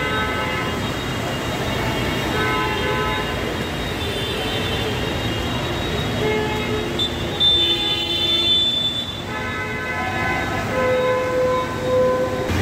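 Several vehicle horns honking in traffic, long held honks that overlap and change pitch, over a steady wash of street noise.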